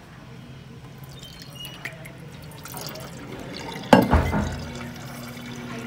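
Water running from an Elkay ezH2O bottle-filling station into a stainless-steel water bottle, with a sudden thump about four seconds in, then a steady hum as the stream runs.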